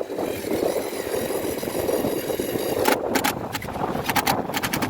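Power driver running a 1/4-20 screw into a freshly tapped hole in a sailboat's boom: a steady motor whine for about three seconds, then a string of sharp clicks.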